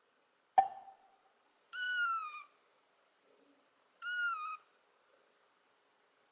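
A kitten meowing twice, high-pitched, each call under a second and falling in pitch at the end. A sharp click comes about half a second in, just before the first meow.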